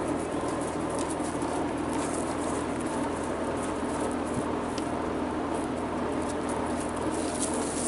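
Australian Shepherd puppies playing: light pattering and scuffling of small paws with a few faint clicks, over a steady background noise.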